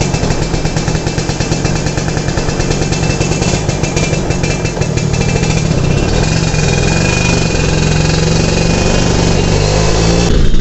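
Honda EX5 underbone motorcycle's single-cylinder four-stroke engine running as it rides off at low speed, a steady fast pulse of firing strokes. It gets a little louder after about six seconds as the bike picks up.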